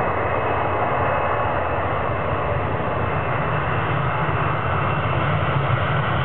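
Boeing 767-300 airliner's twin jet engines at takeoff thrust during the takeoff roll: a steady, heavy rumble and hiss that grows slightly louder near the end as the jet nears.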